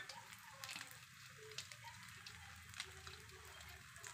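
Omelette frying in oil in a pan: faint sizzling with many small scattered pops and crackles.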